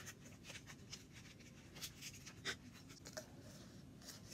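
Faint, irregular crackling and ticking of a paper cupcake liner being handled and pierced with a pencil point.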